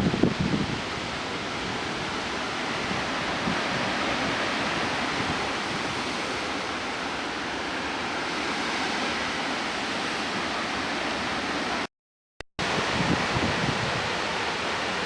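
Strong storm wind rushing steadily through trees, with gusts buffeting the microphone near the start and again toward the end. The sound cuts out completely for about half a second around twelve seconds in.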